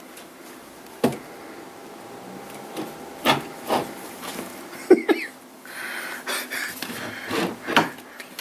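Knocks and scraping from a wooden chest drawer with a cat moving about inside it: a sharp knock about a second in, several more a few seconds later, then a stretch of rubbing and scraping near the end.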